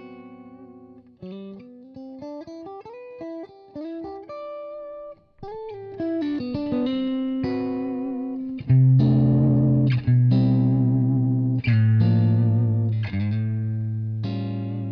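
Electric guitar played through a tube amplifier head and speaker cabinet, heard through a microphone being moved in front of the speaker so the tone shifts. It starts with a run of single notes and short phrases, then about nine seconds in turns to much louder sustained low chords.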